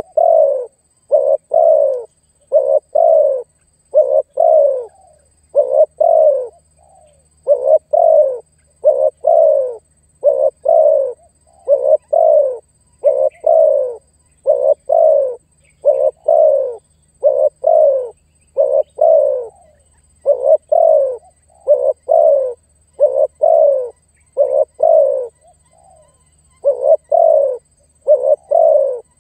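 Male spotted dove cooing over and over: short, slightly falling coos in twos and threes with brief pauses between phrases. This is its calling song, used to call up and challenge rival males.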